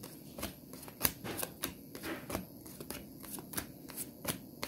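Tarot deck shuffled by hand: an irregular run of light card clicks and slaps, several a second.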